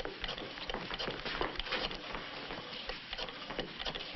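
Footsteps of several people walking on a wooden floor: irregular knocks and scuffs over steady hiss.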